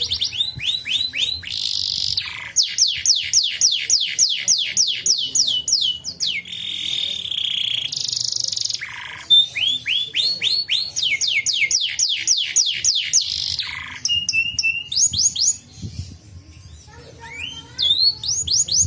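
Domestic canary singing: fast trills of rapidly repeated falling notes, broken by a couple of held whistles, with a short pause near the end before it starts up again.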